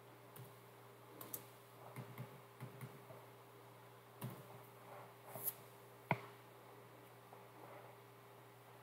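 Sporadic keystrokes on a computer keyboard: about a dozen faint, scattered clicks over the first six seconds, the sharpest about six seconds in, over a faint steady hum.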